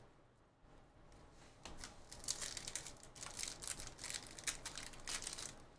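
Wrapper of a trading card pack crinkling and tearing as it is opened by hand, a quick irregular run of crackles starting about a second and a half in.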